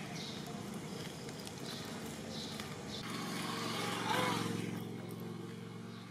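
A small engine, most likely a motorcycle, running steadily from about three seconds in. It grows louder to a peak about a second later and then fades away.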